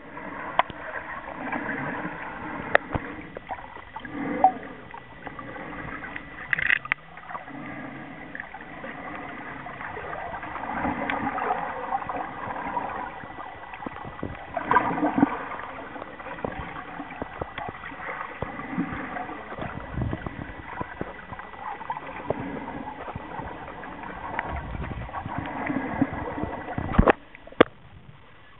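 Muffled underwater water noise picked up by a submerged camera: sloshing and bubbling that swells every few seconds, with scattered sharp clicks and one louder knock near the end.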